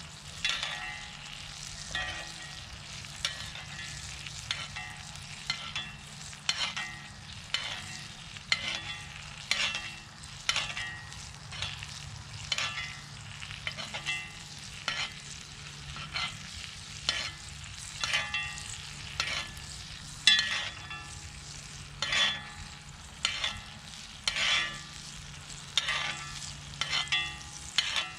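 A utensil scraping and stirring in a cast iron skillet of butter, with frying. The strokes are regular, about one a second, over a steady low hum.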